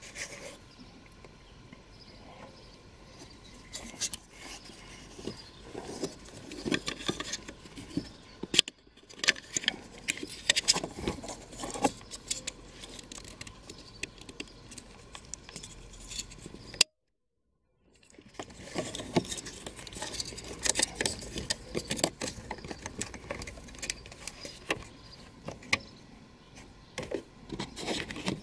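Hands handling a plastic multi-pin wiring connector, making small irregular clicks, taps and rattles. The sound drops out completely for about a second a little past halfway.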